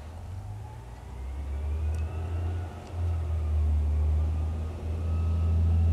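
Garbage truck engine running, a low rumble that grows louder about a second in, dips briefly near three seconds and swells again, with a faint whine above it.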